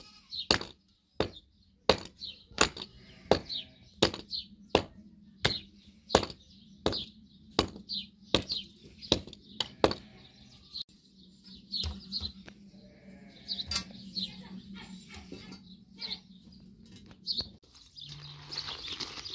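A run of sharp, even knocks, about one and a half a second, for the first half, then slower, scattered knocks over a low steady hum. An even rushing noise starts near the end.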